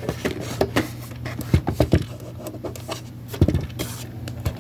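Irregular plastic clicks, taps and knocks as the bottom ice-water compartment of a small portable air cooler fan is handled and its catch pressed in to open it, over a low steady hum.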